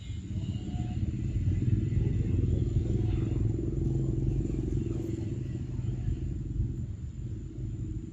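A motor vehicle's engine running nearby as a low rumble, growing louder over the first couple of seconds and fading away toward the end, as if passing by.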